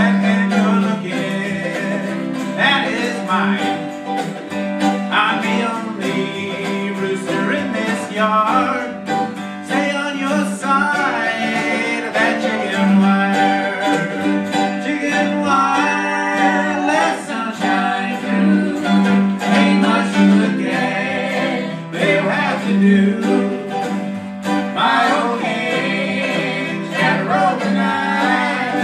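Live acoustic country band playing, with strummed acoustic guitars and an upright bass under a man's singing voice.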